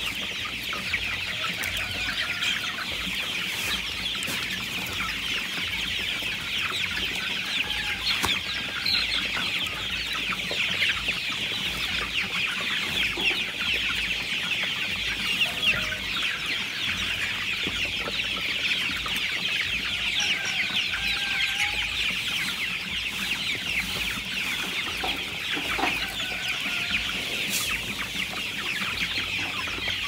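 A large flock of young chickens peeping without pause, a dense chorus of overlapping high chirps with a few lower calls here and there.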